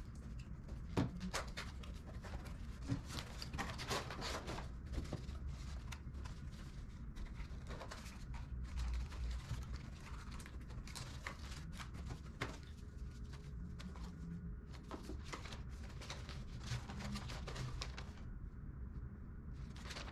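Cardboard packaging being cut open and handled: a knife slitting the box, flaps and paper inserts rustling and scraping, with scattered clicks and knocks. It gets quieter near the end.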